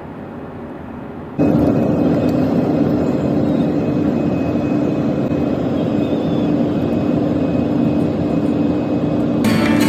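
Steady airliner cabin noise in flight: the even rush of engines and airflow with a constant low hum. It jumps abruptly louder about a second and a half in.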